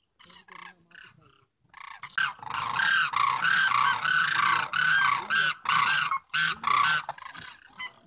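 Cranes calling: many short, repeated calls overlapping, faint at first and loud and continuous from about two seconds in.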